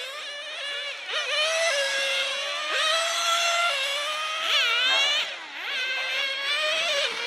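Several 1/10-scale radio-controlled racing cars' small engines buzzing at high pitch, overlapping one another and rising and falling as the cars accelerate and brake through the corners. About halfway in, one swoops sharply up and back down.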